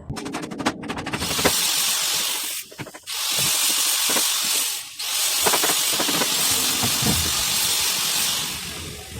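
Compressed air from a trigger-operated air gun hissing in three long bursts that start and stop sharply, after a quick rattle of clicks at the start.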